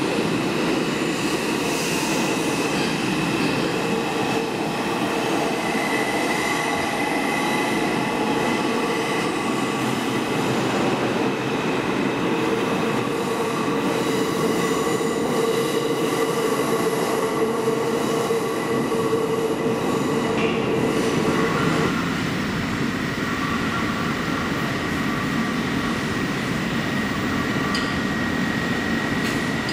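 R142 subway trains moving through the station: a steady din of wheels and running gear with several held whining tones over it. The lowest tone cuts off suddenly about 22 seconds in, while a higher one carries on.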